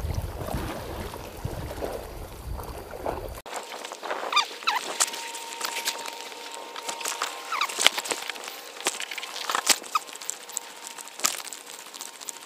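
Wind buffeting the microphone over sea noise. About three and a half seconds in it cuts off abruptly to a thinner sound of scattered sharp clicks and short squeaky chirps, with a faint steady tone for a few seconds.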